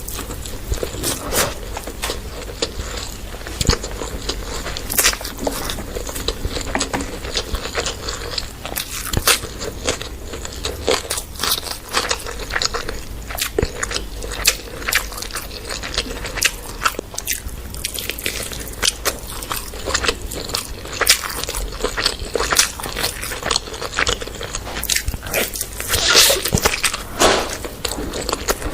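A person eating close to the microphone: steady biting and chewing made of many irregular sharp clicks and crunches.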